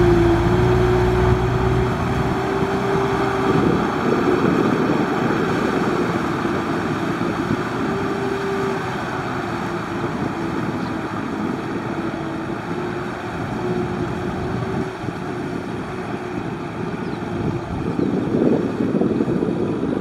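Diesel farm tractor engine running steadily under load while pulling a disc plough through flooded paddy mud, a continuous drone with one held tone that wavers slightly in pitch.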